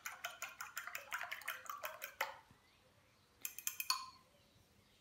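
Eggs being beaten with a metal fork in a glass bowl: quick, rapid clicks of the fork against the glass for about two seconds, then a brief second flurry a little after three seconds in.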